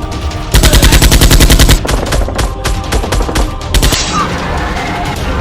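Rapid automatic gunfire sound effect: a loud burst of about ten shots a second for just over a second, then scattered single shots for another two seconds. Action background music runs underneath.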